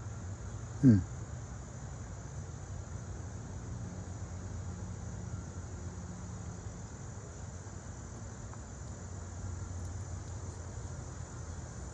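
Steady chorus of crickets with a constant high trill. About a second in, one short, loud sound slides quickly down in pitch.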